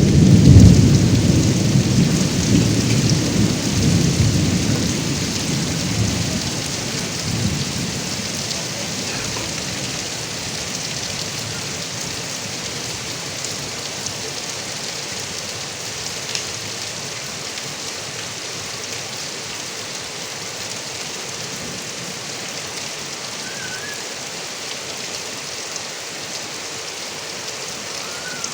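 A rumble of thunder at the start rolls away over the first several seconds, leaving heavy rain falling and pouring off a roof gutter spout in a steady hiss.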